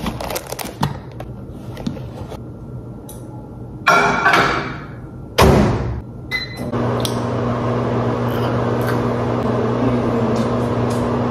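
Over-the-range microwave oven being loaded and started: handling clatter and a sharp thump as the door shuts, two short keypad beeps, then the oven running with a steady hum as it warms the food.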